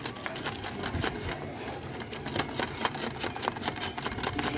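Rapid, irregular clicking and rattling from a small object being worked by hand.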